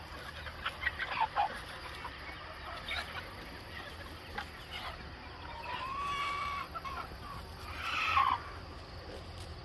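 A flock of chickens clucking and calling, with short scattered clucks, a drawn-out call about six seconds in, and a louder squawk near eight seconds.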